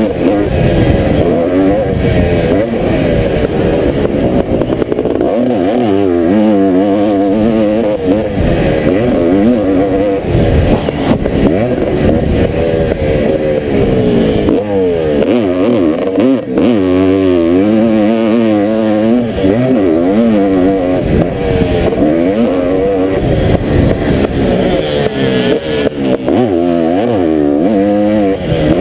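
1983 Honda CR480 two-stroke single-cylinder motocross engine under hard riding, its note rising and falling again and again as the rider opens and closes the throttle.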